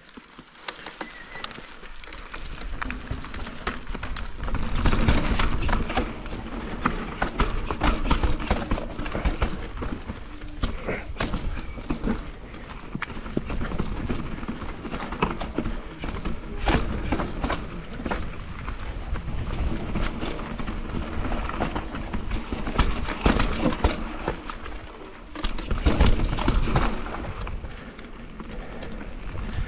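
Mountain bike riding down a steep, rough trail over roots and rocks: tyres rumbling and a constant clatter and knocking of the bike. It builds up from quiet over the first few seconds as the bike gets going, then stays loud with repeated surges over rough sections.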